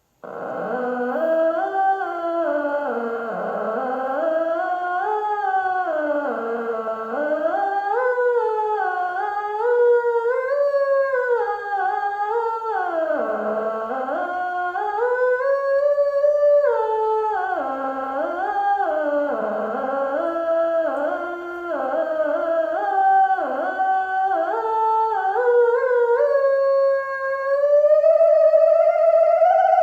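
Theremin sliding up and down in pitch in continuous swoops and wavers, then settling into a steadier held tone that rises slowly near the end.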